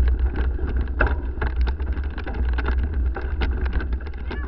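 Wind buffeting the microphone of a mountain biker's action camera during a descent, as a steady low rumble. Over it, a dense run of clicks and rattles from the bike jolting over a rough dirt trail.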